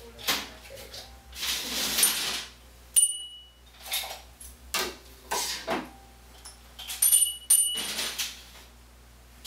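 Small household objects being picked up, shuffled and set down on a shelf: a string of short rustles, scrapes and knocks. Two sharp clinks, about three seconds in and again around seven seconds, ring briefly like hard glass, ceramic or metal items touching.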